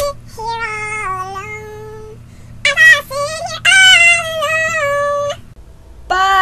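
A young woman singing a few long, high, drawn-out notes in separate phrases, playfully wailing. A short pause near the end comes before one last brief note.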